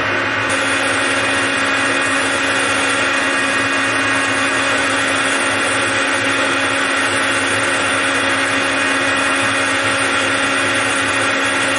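Metal lathe running steadily under power while a form tool cuts a rounded corner on the spinning metal workpiece.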